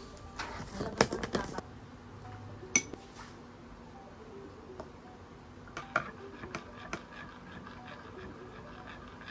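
Metal spoon clinking against a ceramic coffee mug as coffee is stirred: a quick flurry of clinks about a second in, one sharp clink near three seconds, and a run of light clinks around six to seven seconds.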